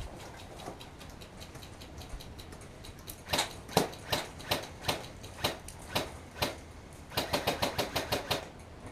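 Airsoft gun firing: single shots at roughly two a second, then a fast rapid-fire burst of about ten shots.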